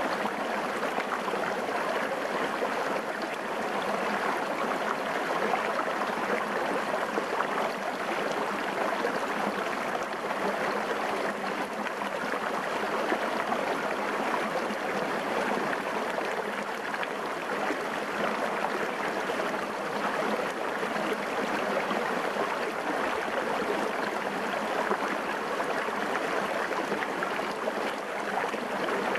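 Small stream running and splashing over rocks, a steady babble of water heard right at water level.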